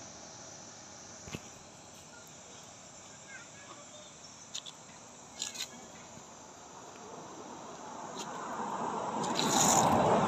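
Outdoor woodland ambience with insects and a few faint clicks, then a broad rush of noise that swells loud near the end.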